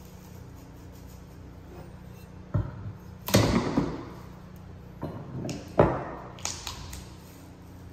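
Sharp knocks and cracks as a section of engineered hardwood floorboard is chipped out between saw cuts: about five separate strikes, the loudest a little past three seconds in, with a cluster near the end.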